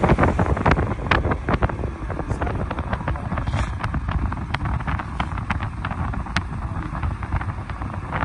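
A vehicle driving along the road: a steady low rumble of engine and road noise, with wind buffeting the microphone in frequent sharp pops.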